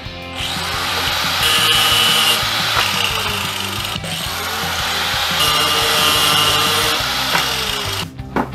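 Handheld power tool cutting PVC pipe, running in two long runs of about four seconds each with a brief break between, its motor pitch sweeping up and down.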